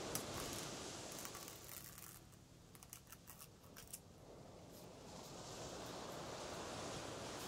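Masking tape being handled at the edge of a canvas, giving a run of small crackles and clicks in the middle, over a faint steady rushing hiss that dips at the same time.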